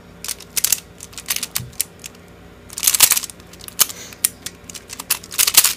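MoYu Pyraminx (Jinzita) being turned quickly by hand during a solve: its plastic layers and tips click and clack in quick irregular bursts, densest about halfway through and near the end.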